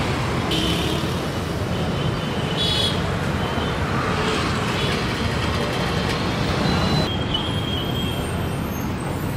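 Busy street traffic: a steady din of passing engines and tyres, with a short horn toot or two in the first few seconds.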